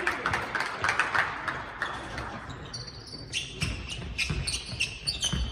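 Basketball bouncing on a sports-hall floor, with repeated knocks, and players' shoes squeaking in short high chirps from a little past halfway, echoing in the large hall.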